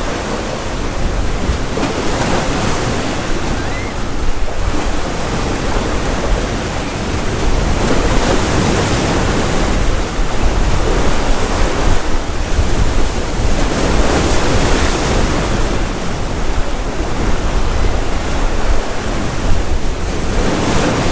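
Sea waves breaking and washing against the concrete tetrapods of a breakwater, swelling and easing every few seconds, with wind buffeting the microphone.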